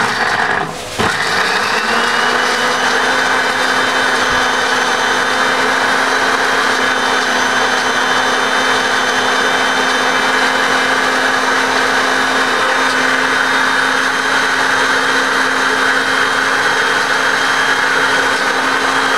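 Panasonic electric blender motor chopping garlic and shallots in its jar: it starts, falters briefly under a second in, spins up and then runs at a steady pitch.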